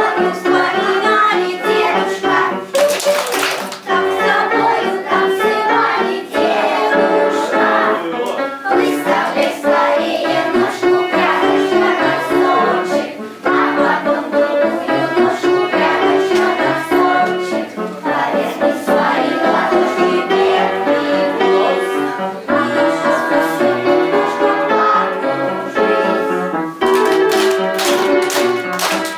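Dance music with singing and a steady beat, played for a children's round dance.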